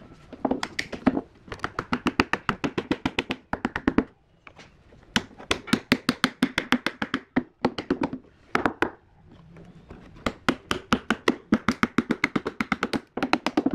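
Claw hammer tapping thin wood strips rapidly into a curved bending form, packing the laminations tight. The light wooden knocks come in quick runs of about eight a second, with short pauses between runs.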